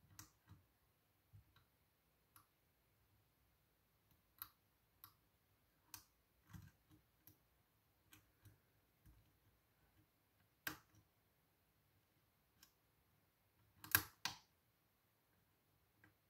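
Faint, scattered small clicks of a hook pick and tension wrench working the pins of a pin-tumbler challenge lock, the kind that mark pins setting, with a louder pair of clicks near the end.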